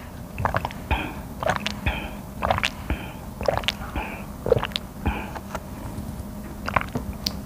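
A person drinking banana milk through a straw from a carton: repeated sips and swallowing gulps, about two a second, that stop about five seconds in.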